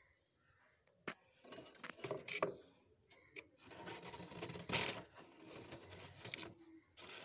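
Metal spoon scraping and chipping at thick, crunchy freezer frost, breaking off blocks. The scrapes come in irregular gritty bursts, starting about a second in, with the loudest a little past halfway.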